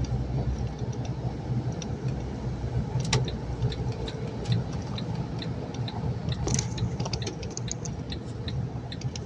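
Inside a moving truck's cab: a steady low engine and road drone, with small irregular clicks and rattles over it.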